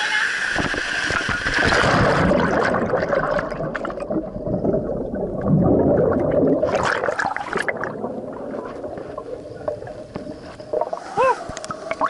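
Rushing water at the foot of a small waterfall, turning muffled and low as it is heard from underwater a few seconds in, with churning bubbles and a burst of bubbling about seven seconds in.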